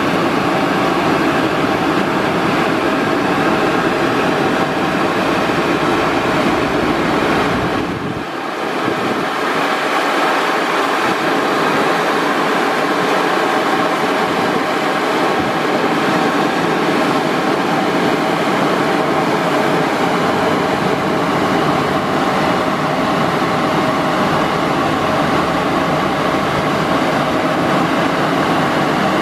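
Dryer blowers of a Ceccato Aries rollover car wash running, a loud steady rush of air, with a brief dip about eight seconds in.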